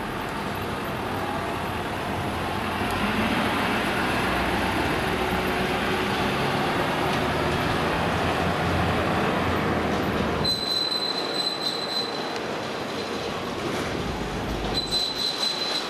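Ford Super Duty ambulance pulling out and driving off, its engine and tyres making a steady rumble. About ten seconds in the brakes squeal in a high steady tone for a couple of seconds as it slows, and again near the end.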